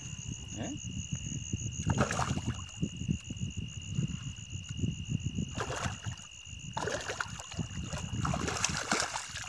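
A small tararira splashing at the water surface as it is reeled in, in a few bursts, the longest near the end. Insects shrill steadily throughout.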